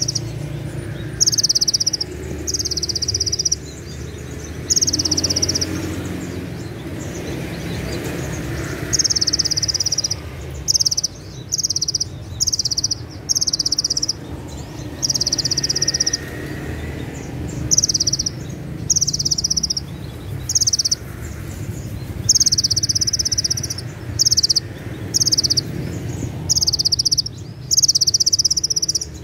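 Caged male Van Hasselt's sunbird (kolibri ninja) singing its 'cililin' shots: short, high, sharp trills, each lasting up to about a second, repeated again and again with brief gaps. A steady low hum runs underneath.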